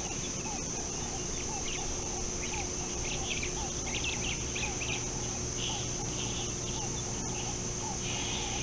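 Steady high insect drone with a short falling call repeated about twice a second throughout; from about two and a half seconds in, bursts of chattering bird calls join it.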